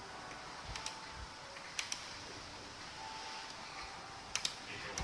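A few separate key presses on the Obins Anne Pro 60% mechanical keyboard's Gateron switches: sparse clicks, with a pair just under two seconds in and another pair after four seconds.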